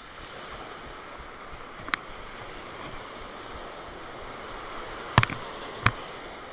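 Small surf breaking and washing up the beach, a steady hiss of waves. Sharp clicks cut through it, one about two seconds in and a few more close together near the end.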